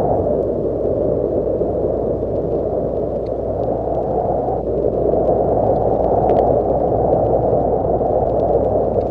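Cold winter wind blowing steadily in a low, hollow rush, swelling and easing slowly, with faint scattered ticks.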